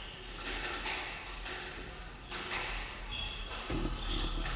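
Squash rally: the ball smacking off rackets and the court walls in a string of sharp knocks, with players' footsteps on the wooden court floor and short high shoe squeaks near the end.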